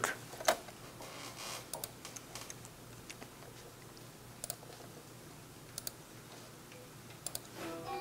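A few faint, scattered clicks over a low steady room hum; just before the end, music starts up from a played video.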